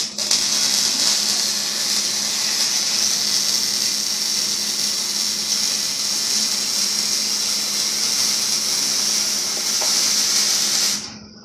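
Plasma cutter slicing through the steel exhaust pipe under an Infiniti G35 coupe during a muffler and resonator delete: a loud, steady hiss over a low electrical hum, cutting off abruptly near the end.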